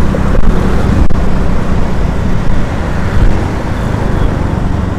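Vehicle running on the road, heard from on board: a steady engine and road rumble.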